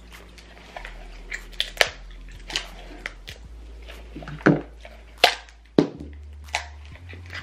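King crab leg shells being cracked and snapped open by hand: about ten sharp, irregular cracks, the loudest about halfway through.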